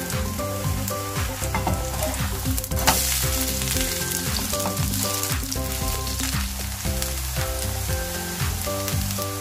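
Water parsley pancake frying in oil in a pan, a steady sizzle that swells briefly about three seconds in, under background music with a melody and bass line.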